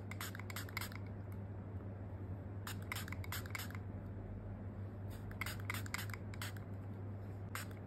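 Pump-action mist spray bottle of collagen booster mist spritzed onto the face in quick short bursts. There are a few sprays at the start, more about three seconds in, a longer run a little past the middle, and one last spray near the end, over a low steady hum.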